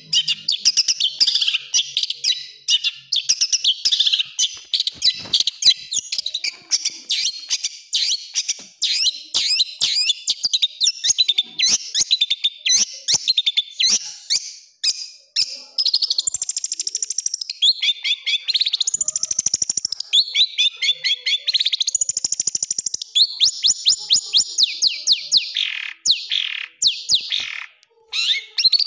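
Long-tailed shrike (cendet) singing a long, fast song of harsh rapid-fire chattering notes and trills, with several down-slurred notes near the end.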